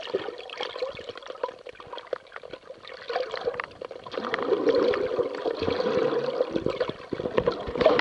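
Moving water gurgling and trickling, full of small pops and crackles, growing louder about four seconds in.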